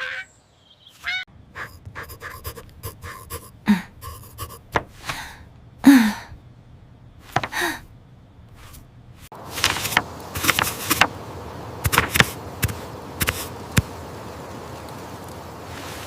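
Cartoon sound effects: breathy panting and gasping vocal sounds with scattered clicks. About nine seconds in, a steady hiss sets in, broken by sharp clicks.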